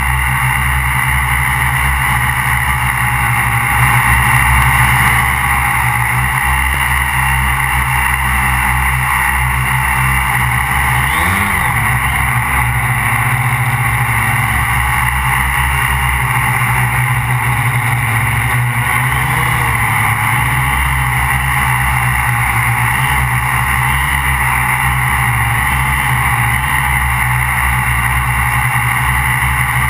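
MikroKopter Quadro XL quadcopter's motors and propellers running with a steady whine heard from the onboard GoPro, with a brief dip and swell in pitch about eleven seconds in.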